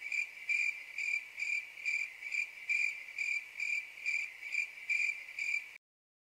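Cricket chirping sound effect, the stock 'crickets' gag for an awkward silence: one steady high chirp repeating about twice a second, cut off abruptly near the end.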